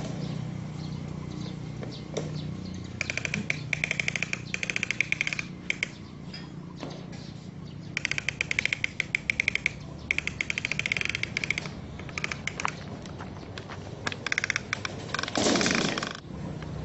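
Plastic toy tractor pushed along a hard surface, its wheels and body rattling in several bursts of rapid clicking, with a short louder scrape of noise near the end.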